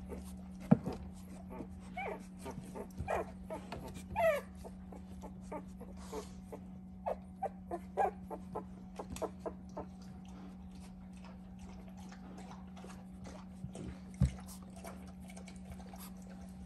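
Two-week-old puppies whimpering and squeaking in short, high whines, many in the first half and fewer later, over a steady low hum. Two brief thumps, the louder one near the end.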